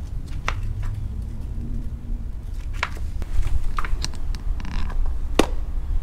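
Light clicks and knocks of a mountain bike being hung in a bike repair stand's clamp, with one sharp, loud click about five seconds in, over a steady low rumble.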